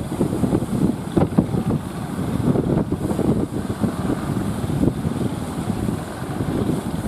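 Wind buffeting the microphone in irregular gusts over the rumble of heavy surf.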